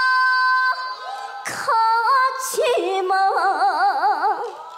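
A young girl singing unaccompanied into a microphone. She holds a note for under a second, then starts a new phrase and ends on a long note with a wide, fast vibrato.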